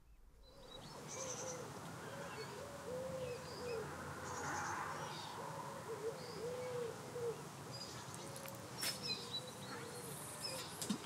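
Outdoor birdsong: a steady run of short, low hooting notes, about two a second, with small birds chirping higher and now and then.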